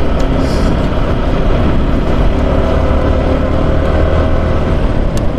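Yamaha motorcycle engine running steadily while riding, mixed with road and wind rush, just after a service with fresh engine oil.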